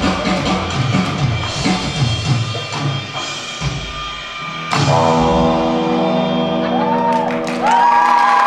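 Rock band with electric guitar and drum kit playing to a steady drum beat, then about four and a half seconds in hitting a final chord that rings out. Near the end the audience starts whooping and clapping over the ringing chord.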